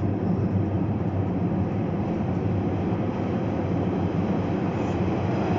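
Guangzhou Metro train approaching the platform through the tunnel: a steady low rumble with a hum.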